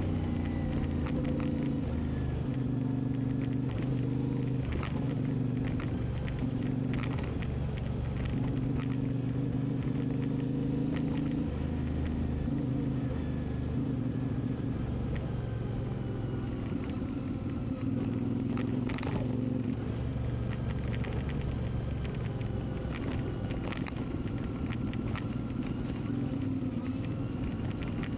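CFMoTo 450MT's parallel-twin engine running while the motorcycle is ridden, its pitch shifting up and down several times with throttle and gear changes. Scattered short clicks sound throughout.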